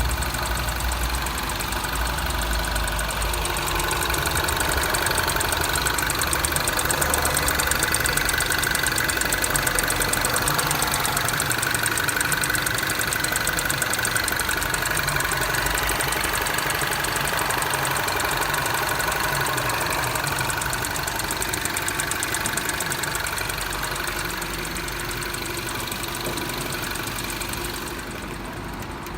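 MINI Cooper R56 engine running cold with a rapid, even knocking. The owner hears this knock only while the engine is cold, at idle or under throttle, and not when coasting off throttle.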